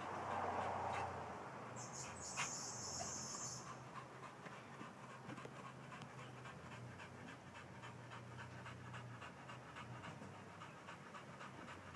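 Dog panting steadily with its mouth open and tongue out. About two seconds in there is a brief high-pitched buzz, with a single click in the middle of it.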